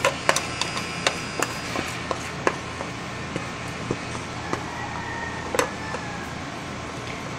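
Plastic spoon stirring and scraping sticky, not yet fully activated slime in a plastic tub: a run of irregular small clicks and sticky pops over a steady hiss.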